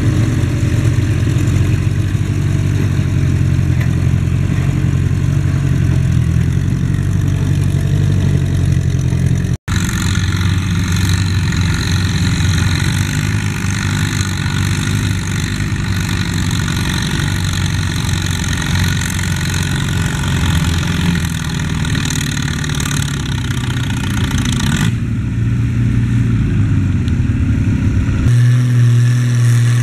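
Antique farm tractor engines running steadily under load, hauling a sled weighted with concrete blocks. The sound drops out for an instant about a third of the way in and comes back as a different tractor, and the engine note changes again near the end.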